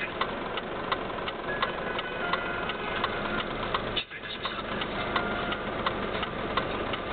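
Vehicle engine running at idle, with a steady, fairly fast ticking over it.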